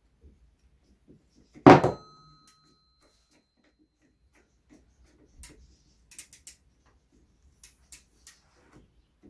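A single loud metallic clank that rings briefly, about two seconds in, then scattered light clicks and taps of a spanner working the old pedal off a BMX crank arm.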